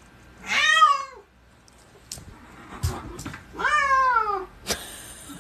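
A long-haired cat meowing twice, each call about a second long and drawn out, rising and then falling in pitch. A few faint knocks come between the calls, and there is a short hiss near the end.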